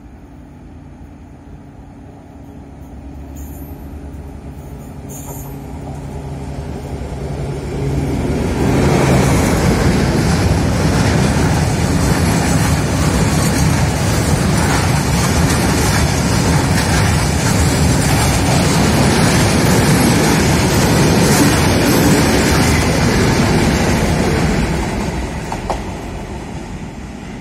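A D345 diesel locomotive approaches with its engine hum building. Loaded ballast hopper wagons follow, rolling past close by with a loud, steady wheel-and-rail roar. Near the end the second D345 at the rear passes and the sound fades as it moves away.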